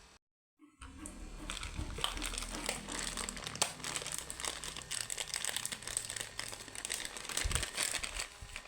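Plastic packaging crinkling and rustling as it is handled and unwrapped, with many small crackles. It starts after a brief dropout of under a second.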